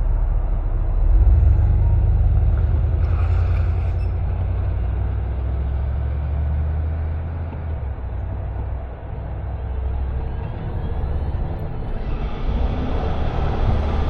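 Car driving: a low engine and road rumble swells about a second in and eases off around nine seconds, then tyre hiss grows near the end.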